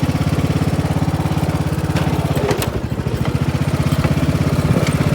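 Craftsman DLT riding lawn tractor's 18.5 hp OHV engine running steadily at high throttle while being driven. It dips briefly about halfway through, then picks back up.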